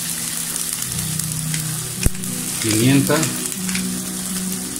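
Tuna and onion sauce sizzling steadily in a stainless steel frying pan on a gas burner, with one sharp click about two seconds in.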